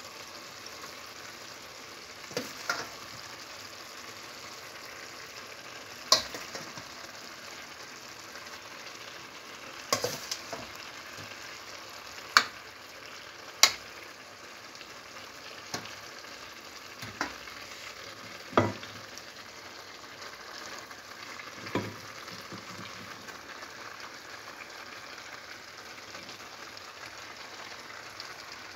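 Shredded cabbage and carrots sizzling steadily as they sauté in a stainless steel pot, stirred with a metal ladle that knocks sharply against the pot about nine times over the first two-thirds.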